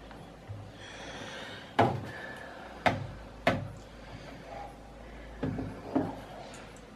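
About five sharp knocks and clicks at irregular intervals, with a brief rustle about a second in: hard objects being handled and set down around the washing machine.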